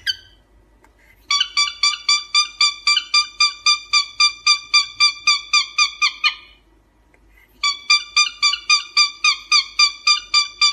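Cockatiel calling in rapid repeated whistled chirps, about four a second on one steady pitch, in two long runs with a short break about six seconds in.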